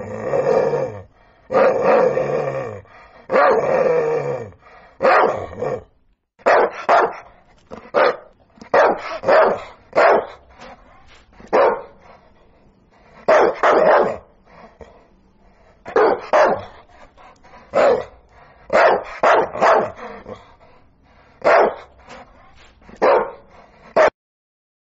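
Sprocker spaniel puppy play-barking: three drawn-out barks, each falling in pitch, in the first five seconds, then a run of short, sharp barks, often in quick pairs and triples, that stops just before the end.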